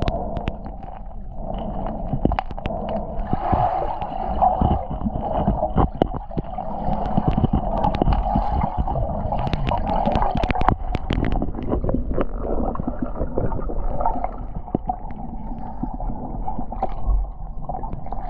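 Underwater sound picked up through a GoPro's waterproof housing: a steady muffled water rush broken by many sharp little clicks and crackles.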